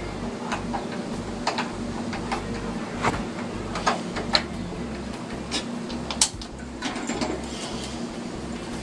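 Scattered sharp clicks and knocks of metal being handled at a propane gas grill and its tank, at irregular intervals about a second apart, over a steady low hum.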